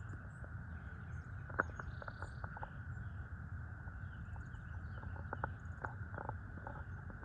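Outdoor woodland ambience: a steady low wind rumble, faint scattered bird chirps and a few small irregular clicks.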